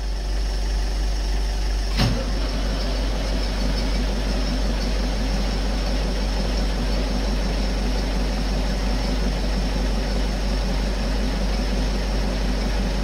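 Big Ford tractor's diesel engine on a cold start, heard from inside the cab. It comes in at the start and then runs steadily, with one sharp clunk about two seconds in.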